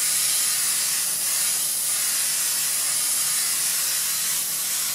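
Aerosol can of 3M Hi-Strength 90 spray contact adhesive spraying in one long, steady hiss that stops abruptly at the end.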